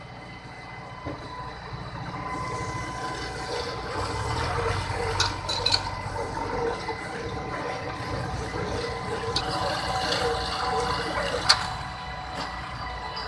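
Orkel silage baler running off a Preet 90 hp tractor: a steady mechanical whine over a rushing noise that builds after about two seconds, with a few sharp knocks, the loudest about eleven and a half seconds in.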